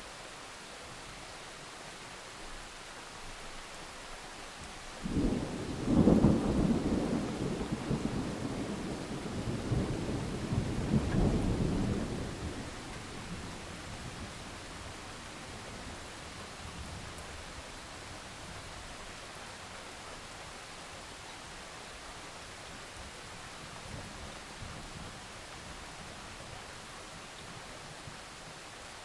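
Steady rain falling, with a roll of thunder that breaks in suddenly about five seconds in, rumbles for several seconds with a second swell, and dies away.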